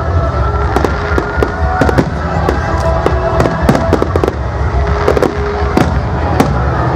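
Fireworks display: a dense run of sharp bangs and crackles over a continuous low rumble.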